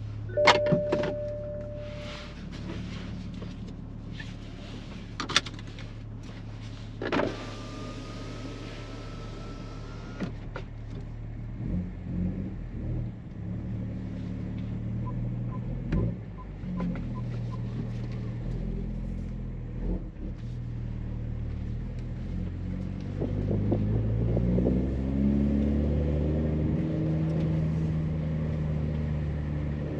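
Toyota Supra A90's B58 turbocharged straight-six, with an AWE Touring Edition exhaust, running at a steady idle, with a few sharp clicks and a short rising whine in the first ten seconds. About 23 seconds in the revs climb and the engine gets louder.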